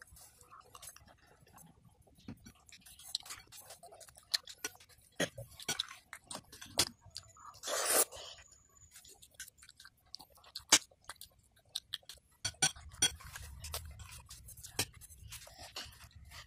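A metal fork clinking and scraping against a ceramic bowl of rice porridge, with a child's chewing mouth sounds. There is a louder breathy burst about eight seconds in, and a low hum comes in near the end.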